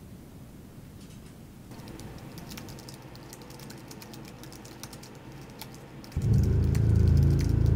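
Typing on a laptop keyboard, quick irregular key clicks. About six seconds in, a loud, steady low drone comes in under the typing.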